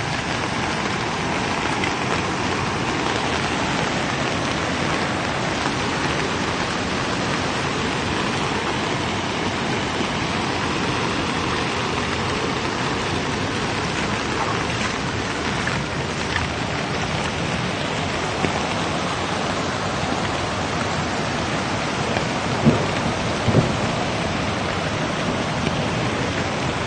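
Floodwater rushing past in a fast torrent: a steady, loud rush of water, with two short thumps near the end.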